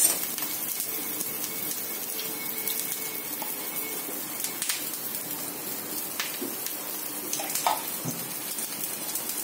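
Wheat-flour pancake frying in ghee in a cast-iron pan: a steady sizzle with a few sharp pops scattered through it.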